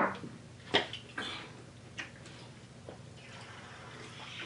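A glass bottle set down on a table with a sharp knock, followed by a few faint clicks and handling sounds. Near the end, a rising rustle as a large plastic water bottle is lifted and drunk from.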